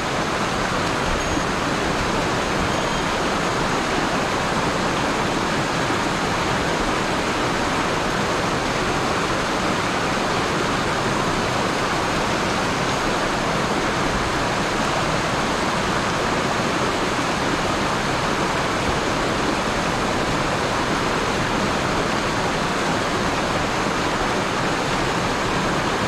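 Mountain headwater stream rushing over small cascades and between boulders, a steady full rush of water. The stream is running high with rain and snowmelt.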